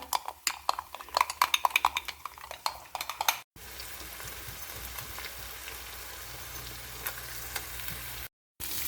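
A spoon stirring a thick garlic mayonnaise sauce in a bowl, with quick clicks and scrapes. About three and a half seconds in it cuts off abruptly and gives way to food sizzling steadily in a hot skillet.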